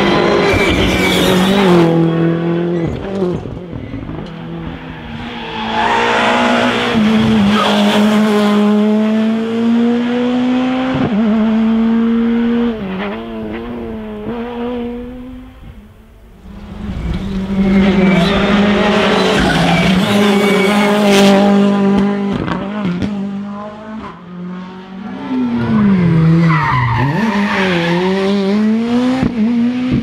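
Rally cars at full throttle on a tarmac special stage, passing one after another. Engine notes climb through the gears and drop when the driver lifts, with a few sharp pops and some tyre noise in the corners.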